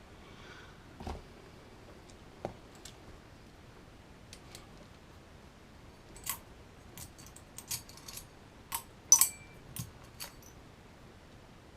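Pliers and small metal and plastic kit parts being handled on a workbench: scattered sharp clicks and clinks with a couple of soft knocks, coming thicker in the second half, the loudest click about nine seconds in.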